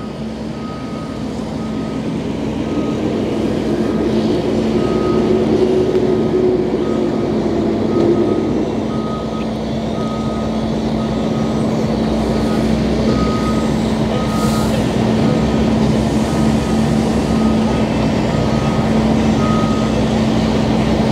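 Wrecker tow truck's backup alarm beeping steadily a little more than once a second over its running engine. The engine note rises and falls briefly about five seconds in, and the beeping stops near the end.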